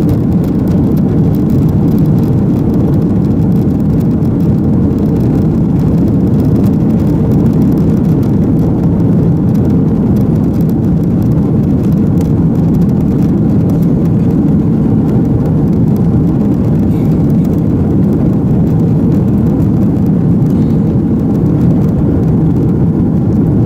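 Steady, loud cabin noise of an Airbus A330-300 moving along the runway, a low engine rumble heard through the fuselage.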